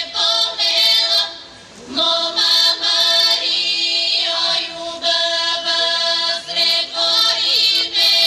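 Bulgarian folk song sung by a women's choir over a steady held drone note.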